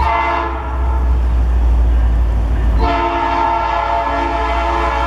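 Diesel locomotive's multi-chime air horn sounding a chord: a short blast at the start, then a long blast from about three seconds in, over a steady low engine rumble.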